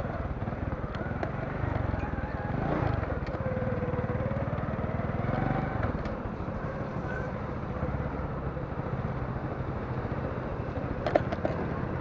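Small motorcycle engine running steadily at low road speed on a rough street, with a sharp knock near the end.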